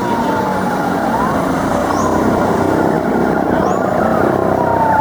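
Vehicle siren wailing in slow rising and falling sweeps over steady traffic and engine noise.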